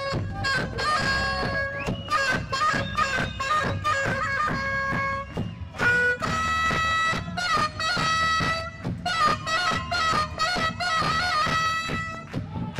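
A saxophone solos with a live rock band, playing held notes broken by quick wavering runs over the band's steady drum hits.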